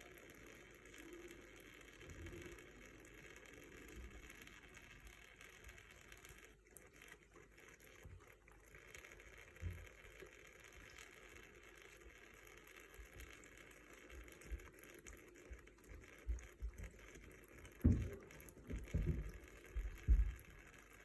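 Water running from a tap in a thin stream, faint and steady, with several loud, low thumps near the end.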